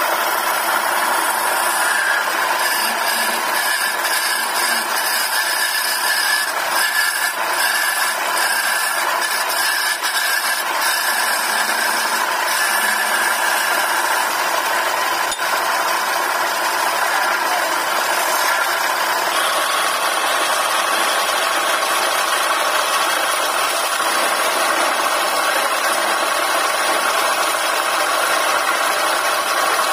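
Wood lathe running while a hand-held gouge cuts a spinning wooden spindle: a steady scraping hiss of the tool shaving the wood over the machine's running noise. The sound changes abruptly about two-thirds of the way in.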